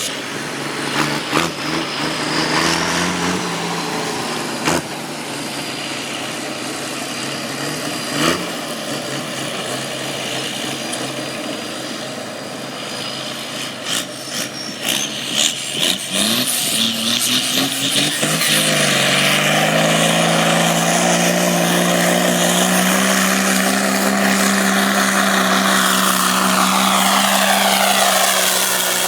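Tractor pulling tractor's engine running, with several sharp knocks in the first half. About two-thirds of the way through it revs up and holds a loud, steady note under full load, as on a pull.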